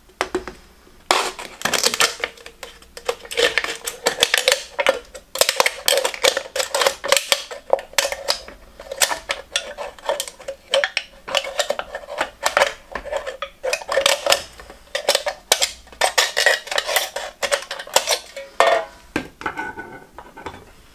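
Kitchen scissors snipping through the thin aluminium wall of a drinks can: a rapid run of sharp metallic cuts and crinkles that starts about a second in and stops shortly before the end.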